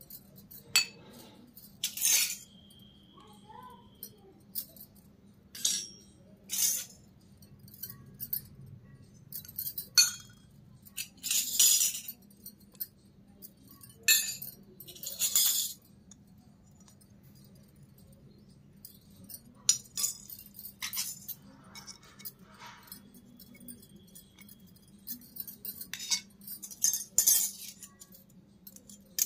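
Miniature stainless steel toy pots, bowls and pans being set down and slid on a concrete floor: scattered metallic clinks, with a few longer scraping clatters.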